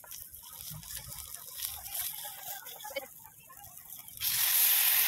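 Light clinks and scraping of ingredients being added to a metal mess tin on a portable gas stove, then about four seconds in a sudden loud, steady sizzle as a tin of sardines in sauce is tipped into the hot oil.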